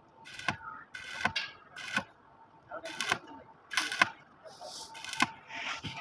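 Irregular sharp metal knocks and clinks, about eight, some ringing briefly: metal tools and steel parts striking each other during excavator frame repair work.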